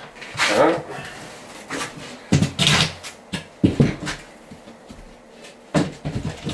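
Wooden OSB panels knocking and scraping as a bath apron panel is handled and slid into place under a tub's rim: a few separate knocks and scrapes, the loudest about two and a half seconds in.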